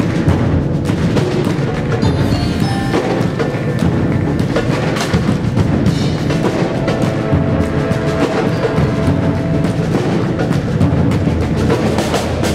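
Live percussion ensemble playing with drum kit, mallet keyboards and bass drum, joined by cello and wind instruments: dense, steady drumming and clicking strikes under a few held notes.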